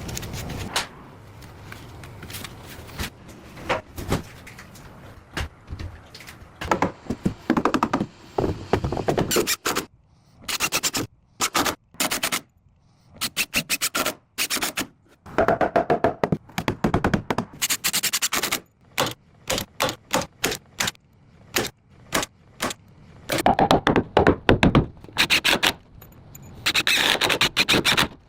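Building work by hand: a long run of sharp knocks, taps and scraping, in short stretches broken by sudden stops.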